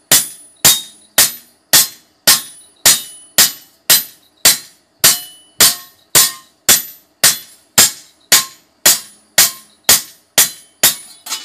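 Hand hammer striking a fodder-chopper blade on an anvil in a steady rhythm of about two ringing blows a second, beating the edge thin.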